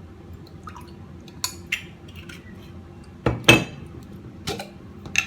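Kitchen utensils and dishes clinking and knocking, with about six separate sharp clinks; the loudest comes about three and a half seconds in.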